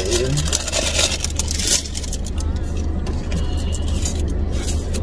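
Car engine and road noise heard inside the cabin as the car pulls away at low speed: a steady low rumble, with a hissier noise over it for the first couple of seconds.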